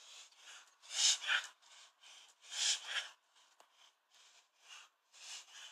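A Staffordshire bull terrier's odd, noisy breathing: quick, rasping breaths several times a second, with louder paired breaths about a second in, near three seconds and near the end. The owner cannot explain it and wonders whether it is anxiety or kennel cough.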